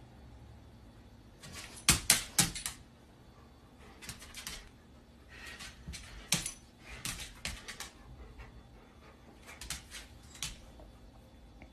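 Dog claws clicking and scrabbling on a hard plank floor as a golden retriever and puppy play, in about five short flurries of sharp clicks; the loudest flurry comes about two seconds in.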